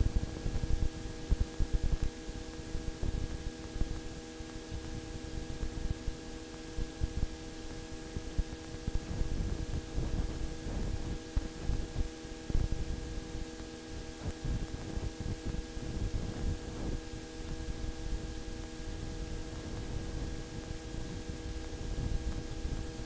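Steady electrical hum made of several fixed tones, over hiss and an uneven low crackling rumble: the open line of a helicopter's headset intercom and radio feed with no one talking.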